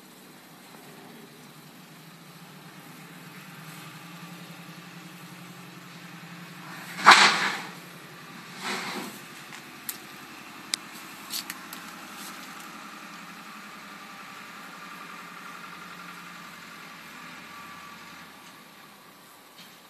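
An engine running steadily in the background, getting a little louder through the middle and dropping off near the end. A loud burst of noise comes about seven seconds in, a smaller one near nine seconds, then a few sharp clicks.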